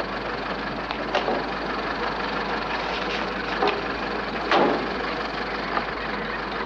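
Small car's engine running steadily, with a few knocks and clatters; the loudest knock comes about four and a half seconds in.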